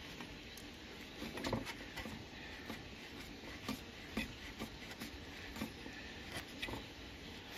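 Scattered light clicks and scrapes of metal as a Wahoo KICKR Bike's bottom bracket cup is unscrewed by hand from the frame, with a small cluster of clicks about one and a half seconds in.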